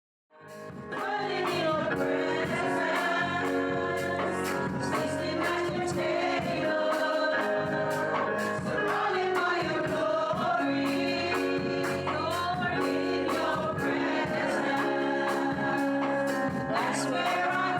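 Gospel worship music: several voices singing over a band with a regular drum beat, cutting in suddenly right at the start.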